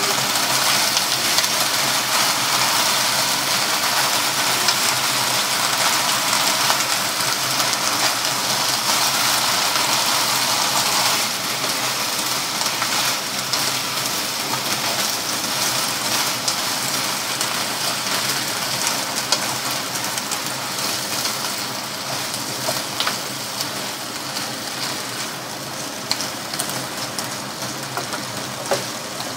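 Leafy greens and beef sizzling in a hot frying pan as they are stir-fried with a wooden spatula, with a few clicks of the spatula against the pan. The sizzle eases slightly about eleven seconds in and fades gradually over the last third.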